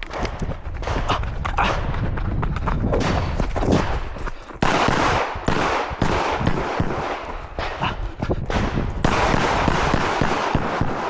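Rapid strings of pistol shots from a Glock, fired in quick succession with short pauses between strings, such as one shooter running a stage.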